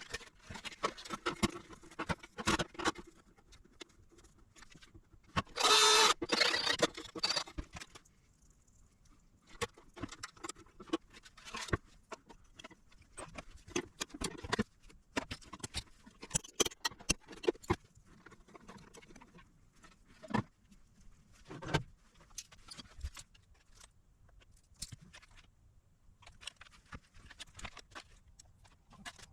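Small tools and parts handled on a workbench: scattered clicks, taps and light rattles throughout. About five seconds in comes a loud, harsh noise lasting about two seconds.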